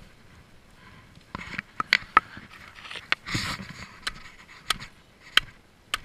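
Footsteps of hiking boots on a wet dirt-and-gravel path, heard as sharp, irregular clicks, with a brief scraping rustle a little over three seconds in.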